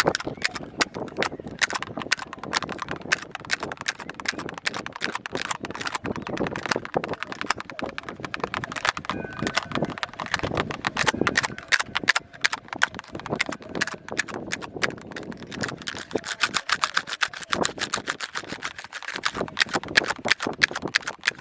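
Rapid, irregular tapping and clicking on a plastic kolukattai (modak) mould, many light taps a second.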